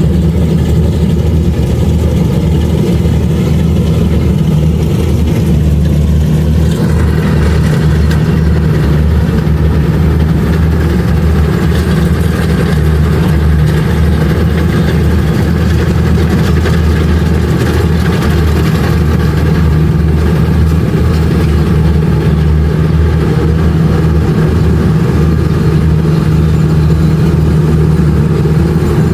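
Kubota DC-70 Plus combine harvester's diesel engine running steadily while harvesting rice, a loud constant drone. More mid-range machinery noise joins in about seven seconds in.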